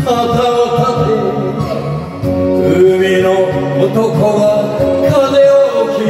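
A man singing an enka song into a microphone over a karaoke backing track, holding long notes.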